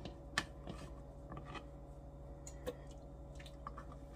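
Faint scattered taps and soft clicks of hands handling dumpling dough squares on a plastic cutting board, over a steady low hum.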